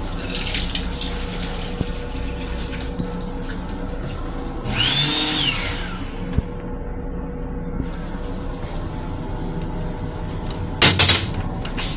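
Brief rush of water from a train restroom sink faucet about five seconds in, over the steady rumble of the moving railcar. Near the end, the plastic toilet lid knocks sharply a few times as it is handled.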